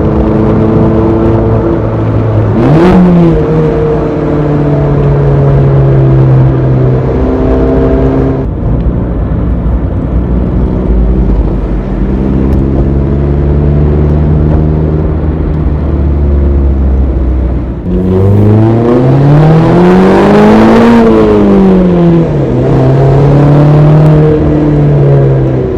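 Mazda ND Roadster (MX-5) four-cylinder engine under way with a manual gearbox, its revs rising and falling through the gears. A quick jump in revs comes about three seconds in, then revs sit low for a while. About eighteen seconds in, a long climb in revs peaks and falls back.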